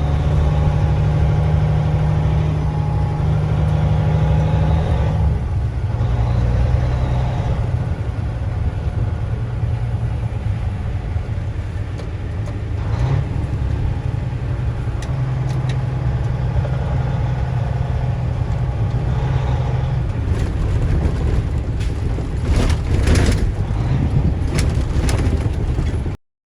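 A vehicle engine running with a steady low hum, with a run of sharp knocks or clicks near the end.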